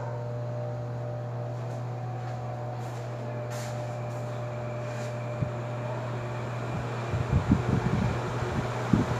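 Arge 50 cm oscillating wall fan running: a steady electric motor hum under a rush of air, with a cluster of low knocks or rattles near the end.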